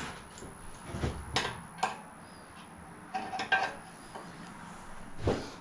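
Scattered metallic clinks and knocks of hand tools and metal parts being handled, with a few sharp clinks in the first two seconds and a short cluster of ringing clinks around three and a half seconds in.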